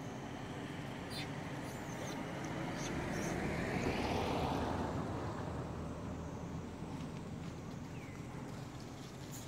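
A motor vehicle passing: a steady traffic hum that swells to its loudest about four seconds in and then fades, with a few faint clicks.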